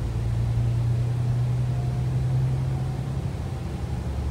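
Volvo B9TL double-decker bus on the move, heard from the upper deck: a steady low engine drone over road noise, dropping to a lower note about three seconds in.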